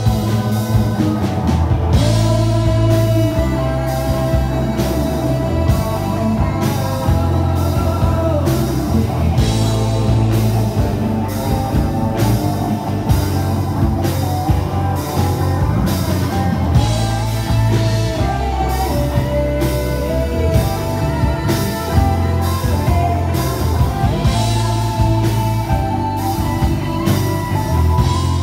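Live rock band playing: acoustic guitar, electric guitar, bass guitar and drum kit, with a moving bass line and a steady drum beat.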